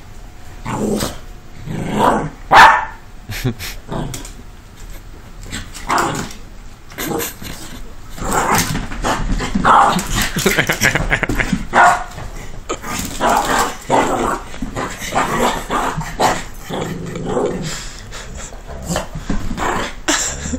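Two dogs play-fighting, with repeated short barks and growls that come thickest in the middle.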